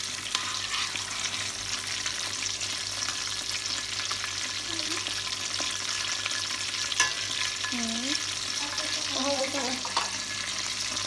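Chicken nuggets frying in a pan: a steady crackling sizzle, with a sharp tap about seven seconds in.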